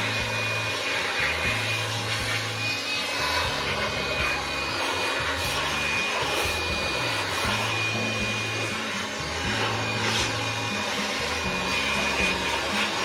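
Blower's air stream blowing water off a wet engine bay: a steady hiss with a thin, high, steady whine. Background music with a bass line plays underneath.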